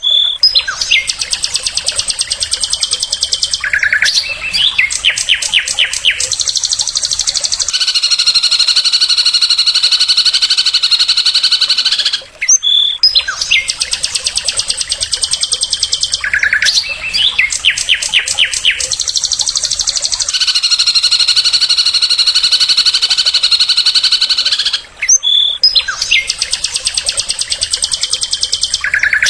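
Recorded songbird song with rapid high trills, runs of quick repeated notes and long buzzy chattering phrases. The same sequence plays as a loop, repeating about every twelve and a half seconds.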